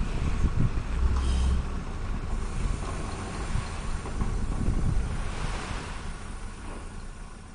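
A forklift runs under load as it shoves a steel shipping container along a flatbed trailer: a heavy low rumble with irregular thumps, and wind buffeting the microphone. The sound fades near the end.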